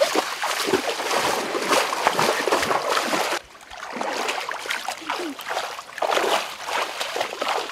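Water splashing as a person wades through a shallow, muddy stream. The splashing drops off briefly about three and a half seconds in, then resumes.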